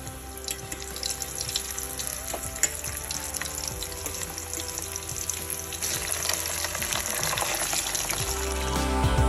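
Panko-breaded pork and chicken cutlets deep-frying in hot oil: a steady sizzle with fine crackling that grows busier in the second half. Soft background music plays underneath and swells near the end.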